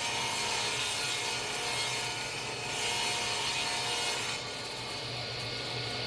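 Saw cutting through wood, a continuous rasping that softens about four seconds in, over a steady low hum.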